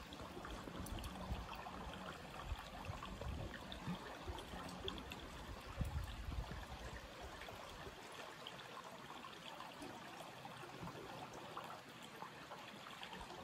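Shallow stream trickling over stones, a steady water sound, with a few soft low bumps during the first half.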